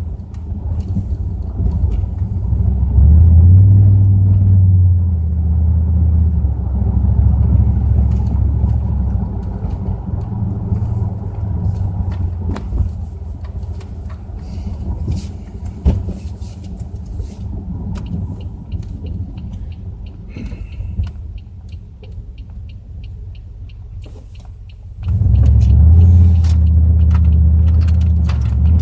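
Pontiac Grand Prix GXP's LS4 5.3-litre V8 with Flowmaster exhaust, driving: a deep rumble that climbs under acceleration a few seconds in, eases off through the middle, and surges again sharply about 25 seconds in. A fast, steady ticking sounds during the quieter stretch.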